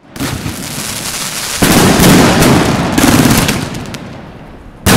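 108-shot 30 mm compound firework cake firing rapid volleys of shots and crackle. The volleys grow much louder about a second and a half in and die down near the end, then a fresh loud volley starts just before the end.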